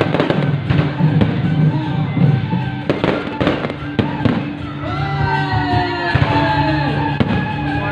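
Fireworks going off in repeated sharp bangs and crackling, with music playing steadily underneath.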